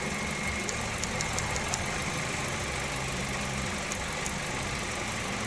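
2009 Hyundai Getz petrol engine idling steadily, with a few faint high ticks about a second in. The ignition leads are leaking spark to ground, which gives the engine an intermittent misfire.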